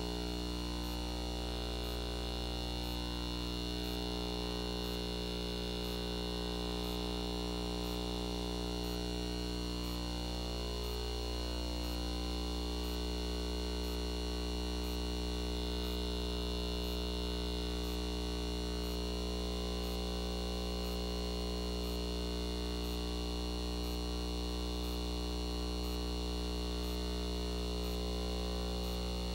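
Steady electrical hum made of several constant tones, with a faint high tick repeating about one and a half times a second.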